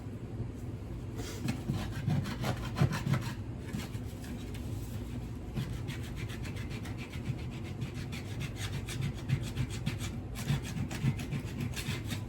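Hand scraper scraping at a wooden floor in rapid short strokes, in two runs with a pause of about two seconds between them.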